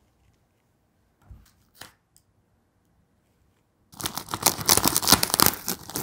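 Packing tape and plastic wrapping being ripped off a cardboard shipping box, a rapid tearing and crinkling that starts about four seconds in after a few faint taps.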